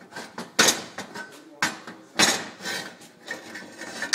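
Metal being handled on a workbench: an aluminium block and tools knocked and slid about, with two sharp clanks about half a second and two seconds in and scraping and rubbing between them.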